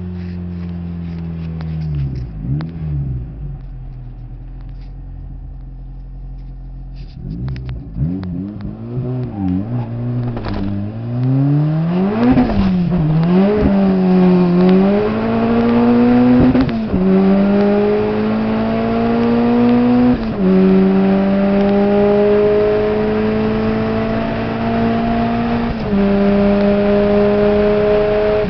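Turbocharged Suzuki Swift GTi's 1.3-litre four-cylinder engine, heard from inside the cabin. It runs lightly at first with a few swings in revs, then pulls hard through the gears from about halfway on. In each gear the pitch climbs steadily, then drops sharply at each upshift, several times near the end.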